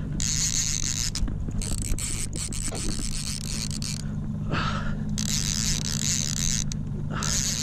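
Boat's outboard motor running steadily at trolling speed, a low even hum, with a high hiss above it that drops out briefly a few times.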